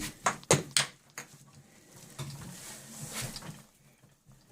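A porcelain toilet being handled and lined up over the floor-flange bolts: a quick run of sharp knocks in the first second, then softer scraping and shuffling.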